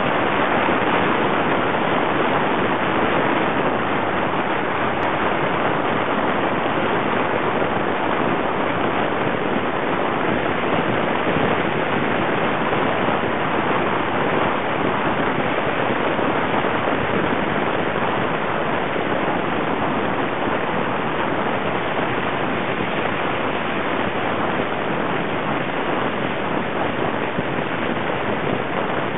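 Steady road and wind noise of a car driving at highway speed, heard from inside the cabin: an even rushing hiss with no horn or distinct train sounds standing out.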